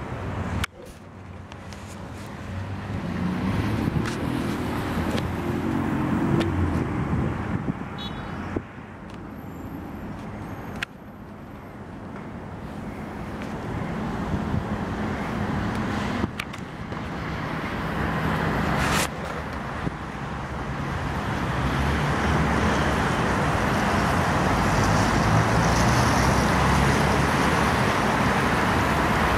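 TEP70BS diesel passenger locomotive approaching with its train: a low diesel engine drone that grows steadily louder, joined in the second half by a rising rush of wheel-on-rail noise.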